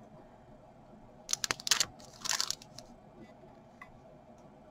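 Card-backed plastic stamp packaging crinkling as it is handled and turned over: two short bursts of rustling, a little over a second in and again about a second later, with a sharp click in the first.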